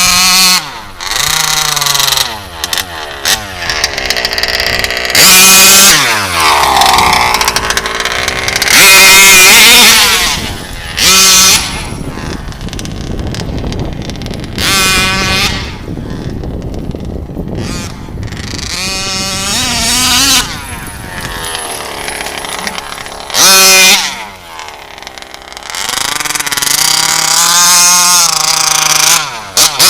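Two-stroke petrol engine of a 1/5-scale HPI Baja RC buggy, an RCMAX engine, revving hard in repeated bursts. Its pitch climbs and falls again and again as the throttle is opened and let off, with lower running between bursts.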